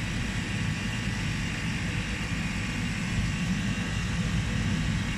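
Steady mechanical drone of a Bitzer cold-storage refrigeration condensing unit running: a low rumble with faint steady higher tones over it.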